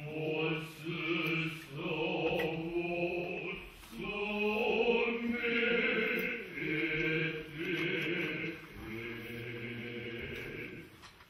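Noh chorus (jiutai) chanting utai in the Kita-school style. The chant moves in long, sustained vocal phrases with short breaks between them.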